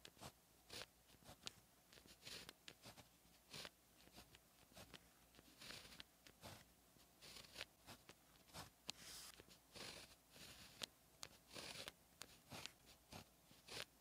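Pen tip writing Chinese characters on paper: an irregular run of short scratching strokes and light ticks as each stroke is drawn, faint and close up.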